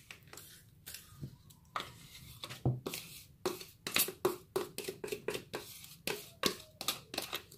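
Metal spoon scraping mascarpone out of a plastic tub, a run of short irregular scrapes and taps against the plastic.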